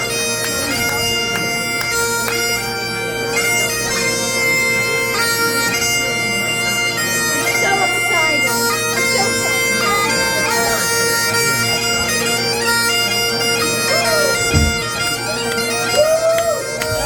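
Bagpipes playing a melody of held notes that step from pitch to pitch over their steady, unchanging drone.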